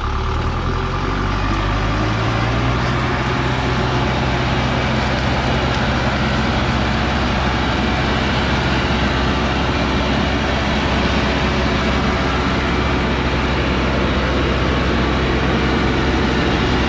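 Heavily loaded logging truck's diesel engine working hard on a steep muddy climb, revving up over the first couple of seconds and then holding a steady, loud drone under load.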